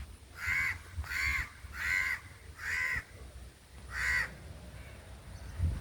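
A bird calling five times: four short calls about two-thirds of a second apart, then one more after a longer pause.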